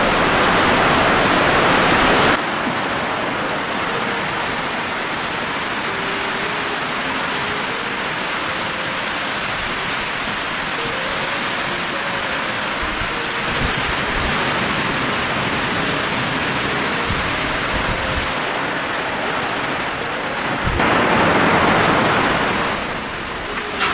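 Heavy typhoon rain and wind: a steady rushing noise that is louder for the first couple of seconds, drops suddenly, and swells again near the end.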